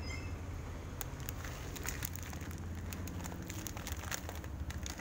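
Shop background: a steady low hum with many scattered small clicks and crackles.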